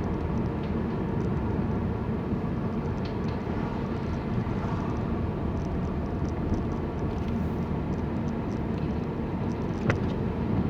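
Car cabin noise while driving: a steady engine and tyre rumble, with scattered faint ticks and one sharp click near the end.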